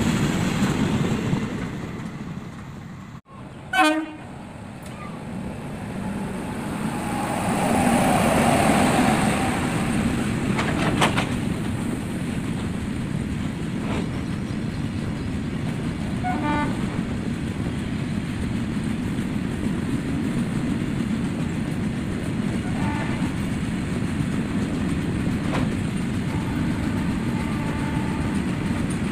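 Long goods train of open steel wagons rolling past at speed: a steady rumble and clatter of wheels on the rails. The sound drops out briefly about three seconds in, then a sharp loud click, and brief tones sound a few times.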